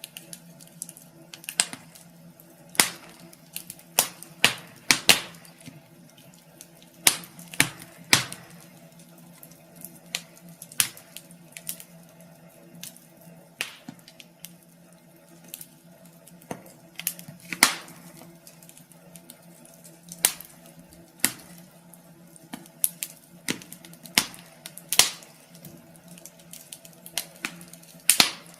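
Wood fire crackling in a fireplace: irregular sharp pops and snaps, a few each second and of varying strength, over a steady low hum.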